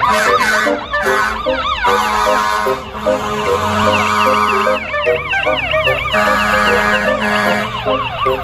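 Electronic ambulance siren in a fast rising-and-falling yelp, with several siren tones layered at once. Steady horn-like tones sound in places underneath.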